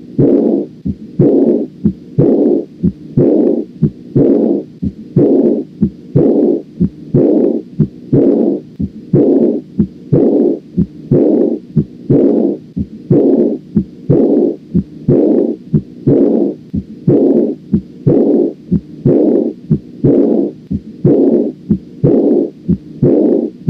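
Heart sounds heard through a stethoscope, with the early diastolic decrescendo murmur of aortic regurgitation. With each beat, sharp heart sounds are followed by a rushing noise that fades away. The beats repeat regularly at a little over one a second.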